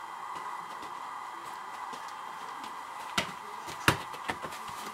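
A soccer ball struck by a foot, a sharp knock about three seconds in and a louder one just before four seconds, over a steady background hiss.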